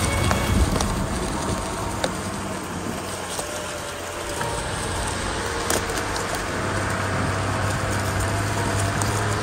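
Nissan Patrol Y60 4x4 with a BMW M57 diesel engine, running steadily. The engine note eases off a few seconds in, then picks up again and holds steady. A few sharp clicks and knocks are scattered through.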